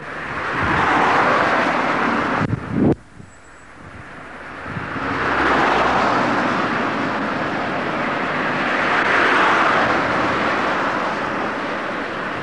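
Steady running noise of slow-moving road vehicles, swelling and fading, with a sudden drop in loudness about three seconds in.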